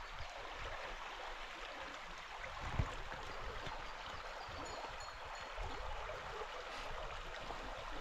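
Mountain stream water rushing steadily over rocks, with a single low thump about three seconds in and a few faint high peeps midway.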